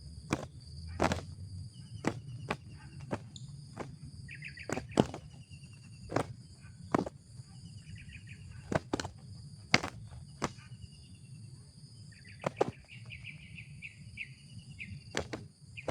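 Insects droning steadily in high tones, with sharp irregular clicks or snaps about once or twice a second and a few short chattering trills, loudest in a long run of them from about twelve to fifteen seconds in.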